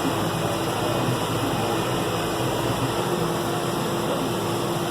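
Steady drone of a John Deere 6105M tractor's diesel engine running under way, heard from inside the cab, with a constant hum.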